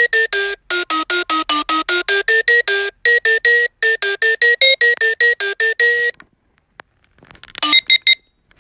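Reizen talking clock's built-in alarm melody: a fast electronic tune of short, clipped beep notes, about six a second, that stops about six seconds in. Near the end a few short beeps of another alarm sound begin.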